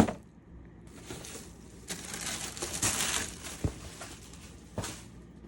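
Packaging being handled and rustling, with a sharp knock at the very start and a couple of light clicks later on.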